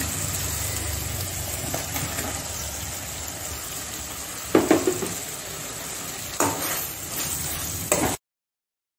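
Okra pieces being stirred into a simmering spiced masala gravy in a stainless steel kadai with a steel ladle: a steady low sizzle, with the ladle knocking against the pan about halfway through and again a couple of seconds later. The sound cuts off suddenly shortly before the end.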